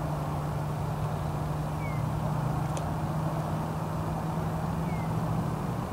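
A steady low engine-like hum, with one faint click about three seconds in and two brief high chirps.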